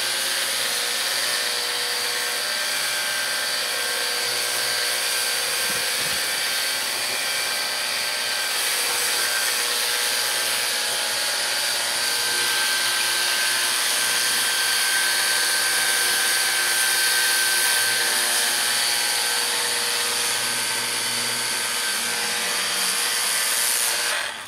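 Hart battery-powered pressure cleaner running steadily: the motor and pump give a steady whine under the hiss of the water spray. It cuts off near the end.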